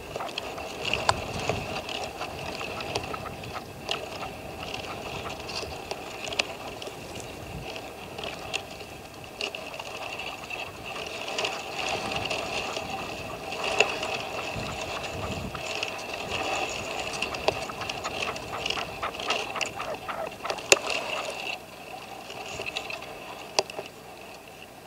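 Caged decoy red-legged partridge calling: a continuous run of rapid clicking, chattering notes with a few sharper clicks, easing off near the end.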